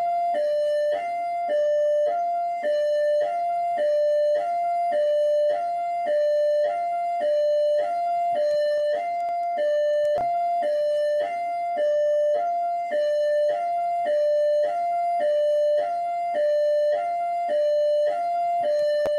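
Rio de Janeiro Military Police (PMERJ) electronic siren in hi-lo mode: two tones alternating high-low without a break, each held about half a second.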